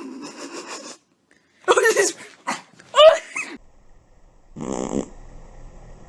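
A dog vocalizing: a rough, grumbling growl, then several short whining yips with the pitch bending up and down about two and three seconds in, and a shorter rough sound near the end.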